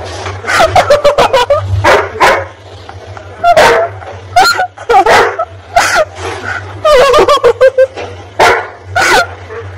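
A husky barking and yipping, many short calls in quick clusters with brief pauses between them.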